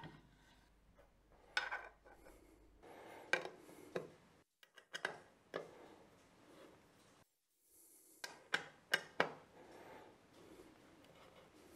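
Hex screwdriver undoing small screws on a metal camera tilting unit: scattered light metallic clicks and taps with bits of scraping as the driver and parts are handled.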